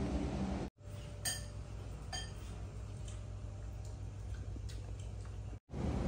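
Two short, light ringing clinks about a second apart over a low steady hum. A steady rushing noise fills the first moment, cuts off abruptly just under a second in, and returns abruptly near the end.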